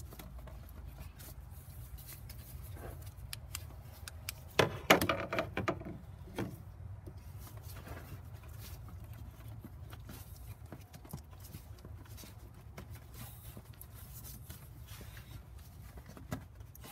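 Gloved hands fitting a rubber hose and its plastic clip in a car's engine bay: scattered clicks and rubs, with a cluster of louder knocks and rustles about five seconds in, over a steady low hum.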